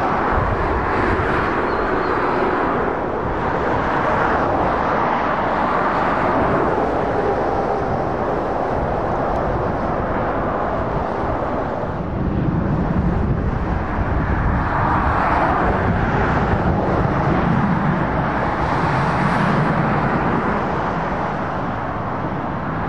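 Motorway traffic passing: continuous tyre and engine noise from a stream of cars and lorries, swelling as each vehicle goes by, with a deeper rumble of heavy lorries in the second half.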